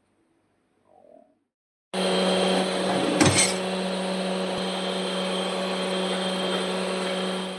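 Voltas dishwasher running: a steady motor hum over a loud hiss, starting suddenly about two seconds in, with a single knock a second later, and cutting off abruptly near the end.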